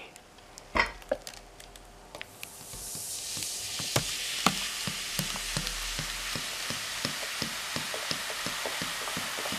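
Coca-Cola poured from a plastic bottle into an aluminium cooking pot, fizzing and foaming: a hiss of bursting bubbles builds from about two and a half seconds in and holds steady, crackling with small pops. A single knock about a second in.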